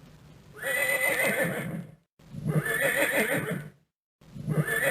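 Horse neighing: one whinny played over and over about every two seconds, two whole calls and the start of a third.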